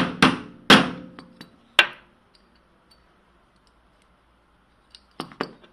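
A small hammer tapping a pin into a welding electrode holder: four sharp metallic strikes in the first two seconds, then two or three lighter taps near the end.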